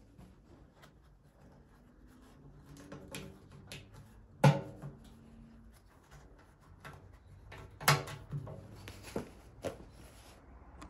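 Clicks and knocks of hands and parts against the painted metal housing of a Venco No. 5 pottery wheel as a fastener is fitted into a hole in its side. Two louder knocks stand out, a little under halfway and about three quarters of the way through, with a few lighter ones near the end.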